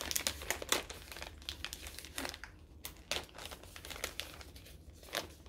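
Wrapping on a small gift package crinkling and rustling in irregular crackles as it is opened by hand.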